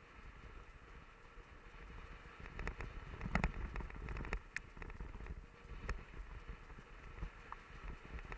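Mountain bike riding down a rough dirt trail: a steady low rumble of tyres on dirt and wind on the microphone, with a burst of sharp clicks and rattles from about two and a half to four and a half seconds in and another near six seconds as the bike jolts over bumps.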